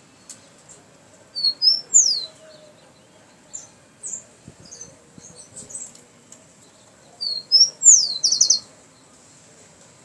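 Rufous-collared sparrow (chingolo) singing its song twice, about six seconds apart. Each song is two short, high whistled notes and then a falling slur, and the second ends in a quick trill. A few softer short notes come between the two songs.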